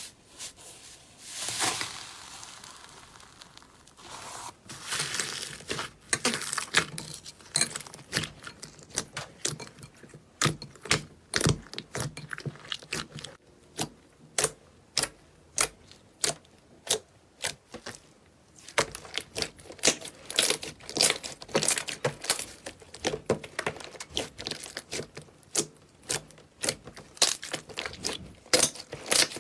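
Slime being squeezed and pressed by hand, giving a long run of sharp pops and crackles, softer and more rustling at first, then denser and louder.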